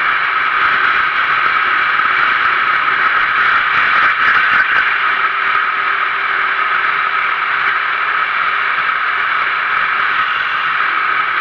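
Sodi RT8 rental kart's 390cc single-cylinder four-stroke engine running flat out at racing speed, picked up on board along with steady wind and tyre noise; it swells a little about four seconds in.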